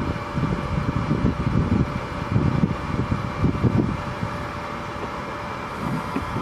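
Boat engine running steadily, with irregular low wavering sounds over it for the first four seconds.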